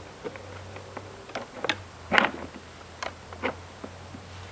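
Light handling clicks and knocks, about half a dozen, as brass bolts and a leather chair back are fitted to wooden chair legs; the loudest comes about two seconds in. A steady low hum runs underneath.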